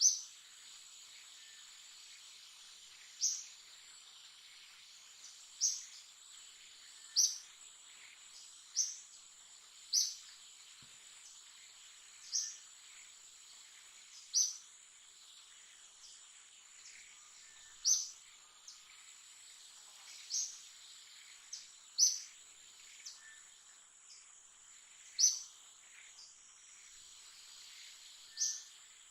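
Outdoor insect chorus: a steady high-pitched drone, with a short, sharp high chirp repeating every one to three seconds, some chirps much louder than others.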